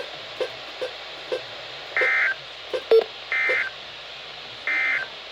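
Weather radio end-of-message signal: three short bursts of digital SAME data, a harsh warbling chirp about a third of a second long, repeated about every 1.3 seconds. They sound over a faint radio hiss and hum, with a few small clicks and one sharper click between the first two bursts.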